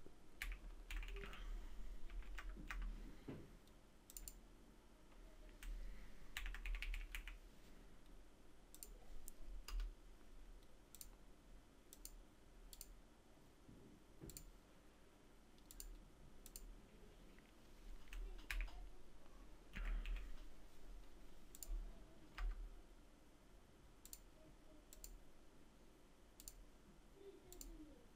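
Faint computer mouse clicks and keyboard typing: scattered single clicks with a few short runs of keystrokes.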